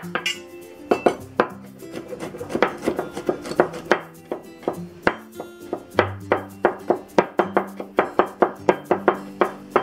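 A vegetable cleaver chopping on a wooden cutting board, mincing garlic: sharp knocks, a few at first, then a steady run of about three to four a second.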